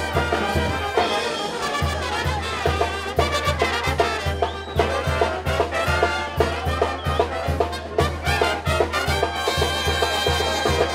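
Banda music: a Mexican brass band playing, trumpets and trombones carrying the melody over a steady bass beat.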